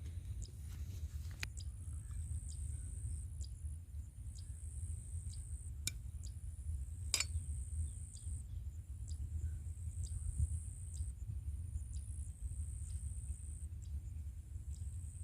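Insects, crickets by their sound, chirping in a high thin trill that comes and goes, with light ticks about twice a second, over a steady low rumble. A couple of sharper clicks come about midway.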